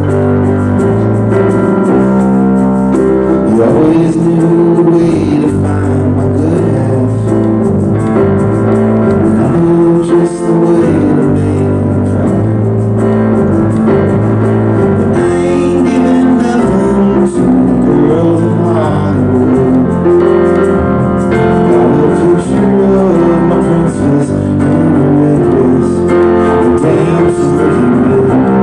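Live band playing a song: keyboard and acoustic guitar over a steady bass line.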